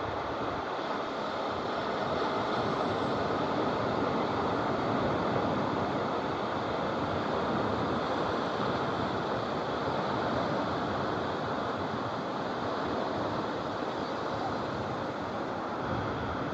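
Steady, even rush of small surf washing onto a sandy beach, mixed with wind noise on the microphone.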